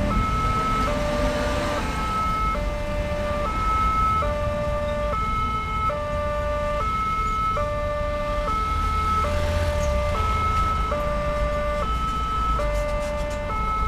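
Level-crossing warning alarm sounding a steady two-tone high-low signal, switching pitch about every 0.8 s. Underneath it, motorcycles and cars drive over the crossing.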